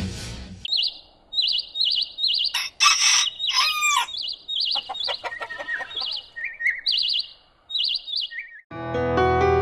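Village bird ambience: a small bird chirping in short repeated phrases, with a rooster crowing once about three seconds in. Soft piano music comes in near the end.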